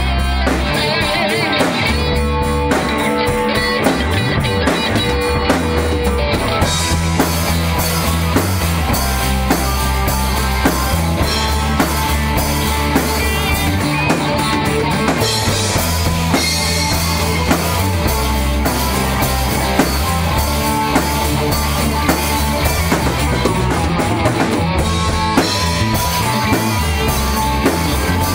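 Rock music with a drum kit, guitar and bass playing a steady beat.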